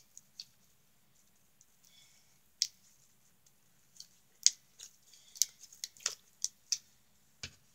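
Slime being squished and poked by hand in a glass dish, making sharp wet clicks and pops: a couple near the start, then an irregular quick run of them from about four seconds in.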